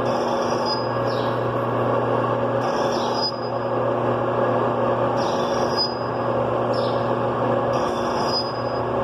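A workshop machine tool running steadily, with a cycle that repeats about every two and a half seconds and a brief high squeal each time.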